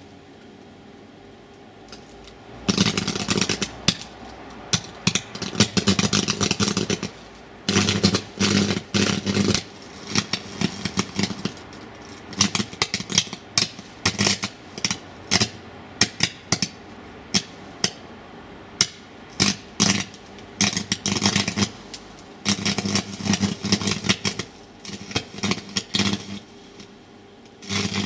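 Arc welder electrode arcing on a circuit board: harsh crackling and buzzing with a low hum, struck and broken again and again. Longer runs of a second or more come in the first ten seconds and again near the end, with short spurts in between.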